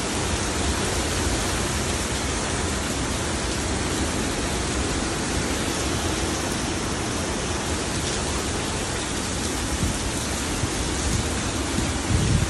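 Hurricane wind and heavy rain as a steady, unbroken rush of noise, with a louder low gust buffeting the microphone near the end.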